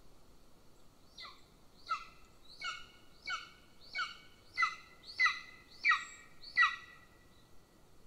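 Young golden eagle calling: a series of about eight down-slurred yelps, roughly one every 0.7 seconds, growing louder toward the end.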